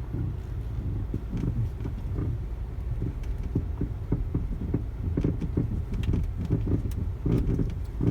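Volkswagen Passat B6 rolling slowly over bumps, low road rumble with repeated short crunching clicks from the suspension. The owner cannot tell whether the crunch comes from the steering rack, a CV joint or a strut top bearing.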